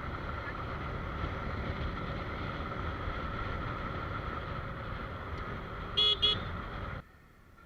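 Steady road and wind noise of riding, then two short vehicle-horn beeps in quick succession near the end, after which the sound cuts abruptly to a much quieter background.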